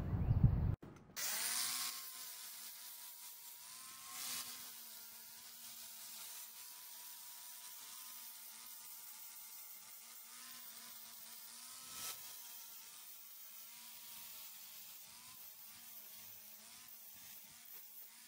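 Angle grinder fitted with a 60-grit Diablo Steel Demon flap disc, running steadily against a rusted iron railing to grind off the rust: a quiet, even whine that starts about a second in, its pitch wavering slightly as the disc bears on the metal.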